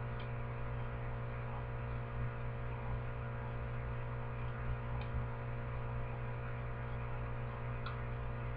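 Steady low electrical mains hum under quiet room tone, with a few faint short ticks.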